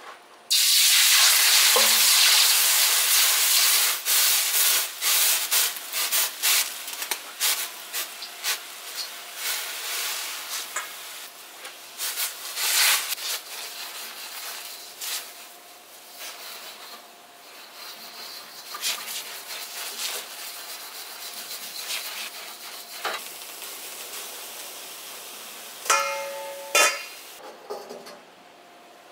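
Cold water poured into a very hot carbon steel wok hisses loudly as it flashes to steam for about three seconds. Then a stainless steel scrubber, held in tongs, scrubs the wok in soapy water with rough, uneven scraping strokes. Near the end come two metal clanks with a short ringing tone.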